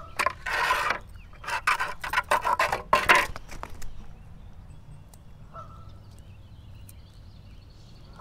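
Crappie on a metal chain stringer being handled on concrete: a quick run of loud rattling and slapping in the first four seconds. After that, two short honking bird calls, one a little past halfway and one at the end.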